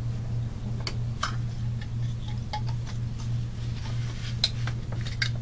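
Small metal valve parts of an air-compressor valve cartridge clicking lightly as they are fitted together by hand, with a few clicks about a second in and again near the end, over a steady low hum.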